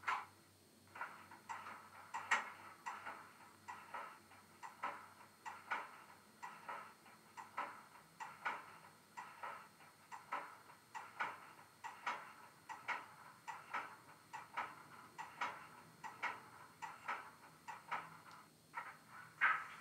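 Bachmann Class 08 model's DCC sound decoder playing the shunter's English Electric diesel idling through the model's small speaker: a quiet, uneven knocking beat of about two to three knocks a second.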